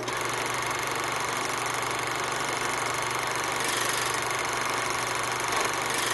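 A small machine running steadily: an even whirring noise over a low hum.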